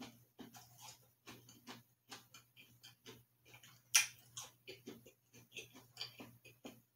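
A person chewing a mouthful of frosted cookie: a run of small, irregular mouth clicks and smacks, a few a second, with one louder smack about four seconds in.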